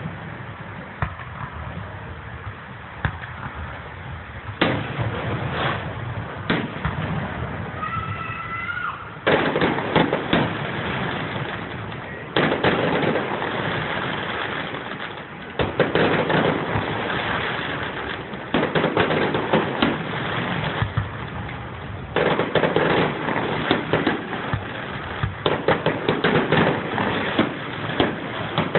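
Fireworks going off: repeated sharp bangs and stretches of dense crackling that start suddenly several times. There is a short whistling tone a little before 8 seconds in.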